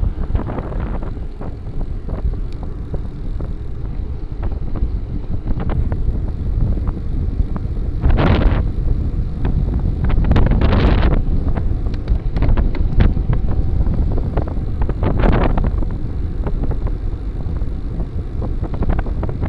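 Wind buffeting the microphone of a bicycle-mounted camera while riding on a paved road, as a steady low rumble. Three short, louder rushes come about 8, 11 and 15 seconds in.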